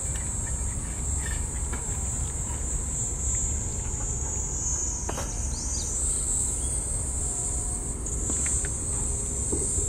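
Steady, high-pitched shrill of an insect chorus, over a low background rumble.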